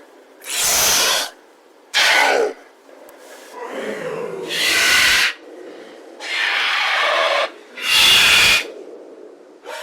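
Recreated Utahraptor vocalization sound effect: a string of about six short, breathy hisses and snorting calls, each under a second, with gaps between them.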